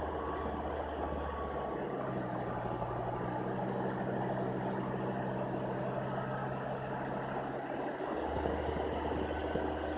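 Volvo D5 diesel engine running steadily with a low hum. About two seconds in, the deepest part of the hum drops away and a slightly higher steady tone takes over. It switches back about eight seconds in. This may be the strange sound being shown.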